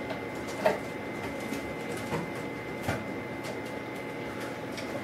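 Faint steady background hiss with a thin high whine, broken by three or four soft clicks.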